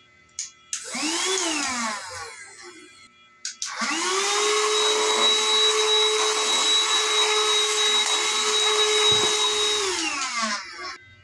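Cordless handheld vacuum cleaner switched on with a click and its motor spinning up, then quickly winding down. After another click it spins up again, runs at a steady high whine for about six seconds, and winds down when switched off.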